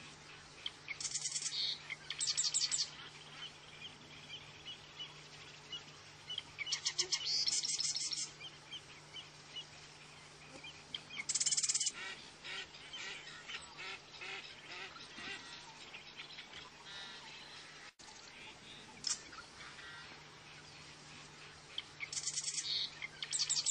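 American avocets calling: bursts of rapid, high, repeated notes about a second long, coming again and again, with fainter calls in between.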